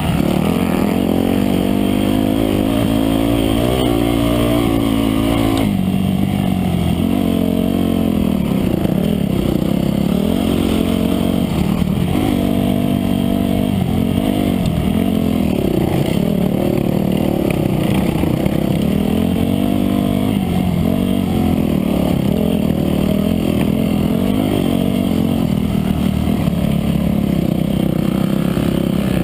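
Dirt bike engine heard up close from on board, revving up and down as the rider opens and closes the throttle along the race trail. The pitch climbs and drops every second or two over a steady rush of noise.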